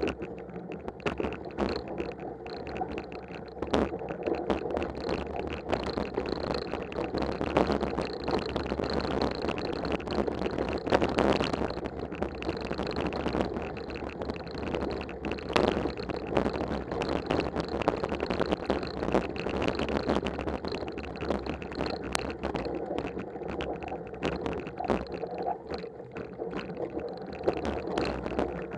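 Mountain bike ridden along a snow-covered forest trail: a continuous rumble from the tyres and bike, with frequent small knocks and rattles as it rolls over bumps.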